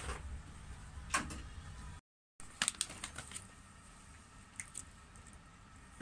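A couple of light knocks over a low hum, then, after a brief cut to silence about two seconds in, scattered crinkles and clicks of a plastic bag of dog chew treats being handled.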